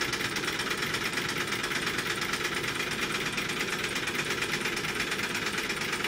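Claw machine rapidly taking on credits: a fast, even mechanical clatter of clicks that runs without a break while the credit counter climbs.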